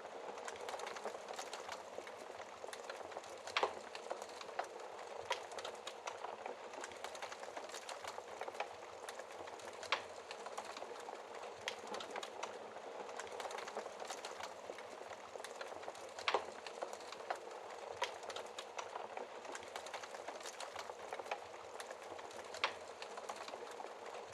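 Wood fire crackling in a fireplace: a steady hiss of burning with many small crackles and a few louder, sharper pops spaced several seconds apart.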